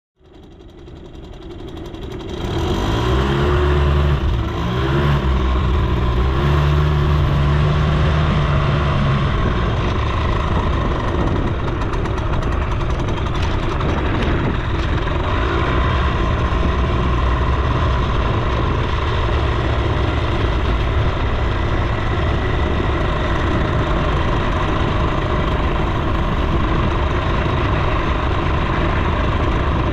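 Suzuki FZ 50 moped's small two-stroke single-cylinder engine under way, its pitch rising and falling for the first several seconds as it pulls away. It then runs at a steady pitch while riding, under a continuous rush of noise.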